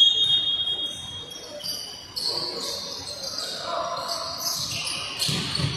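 Basketball game sounds: sneakers squeaking on the hardwood court and the ball bouncing, with players calling out. A loud, high squeal lasting about a second and a half comes at the start, and a dull thump comes near the end.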